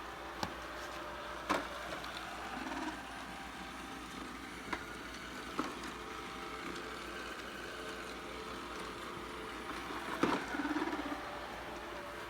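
ILife robot vacuum cleaner running with a steady motor and brush hum, broken by several sharp knocks. The loudest knocks come about a second and a half in and again about ten seconds in.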